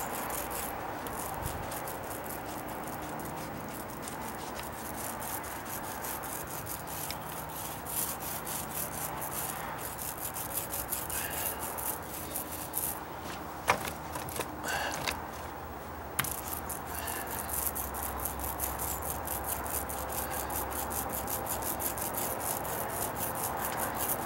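Mini paint roller rubbing as it rolls primer onto a wooden deck stair tread, with a few sharp clicks midway.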